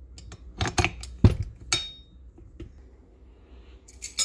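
A handful of sharp knocks and clinks from a stand mixer's dough hook and other utensils handled against a stainless steel mixing bowl, one with a short metallic ring. A brief scratchy rustle follows near the end.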